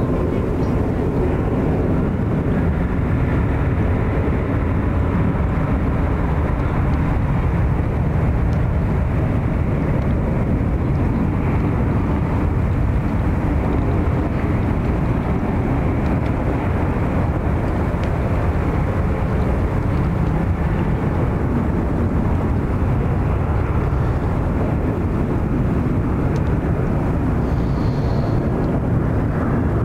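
Boeing 777 jet engines running: a loud, steady, deep rushing noise.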